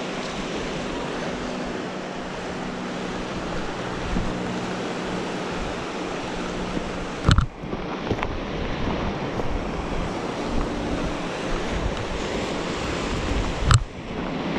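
Sea waves washing in, with wind buffeting the microphone, a steady rushing noise; two sharp clicks break it, about seven seconds in and near the end.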